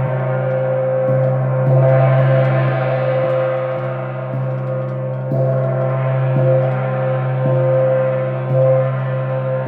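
Moon gong struck about once a second, each stroke adding to a continuous ringing of many layered tones.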